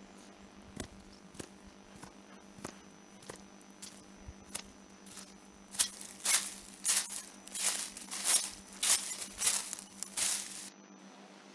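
Sound effect of footsteps crunching through dry autumn leaves: faint steps at first, then from about halfway louder crunching steps at about two a second, cutting off shortly before the end.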